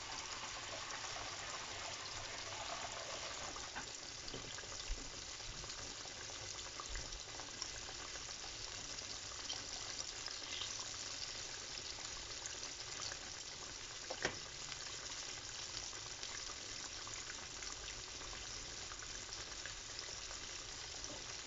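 Battered chicken pieces frying in a pan of hot oil: a steady bubbling sizzle, with one sharp click about two-thirds of the way through.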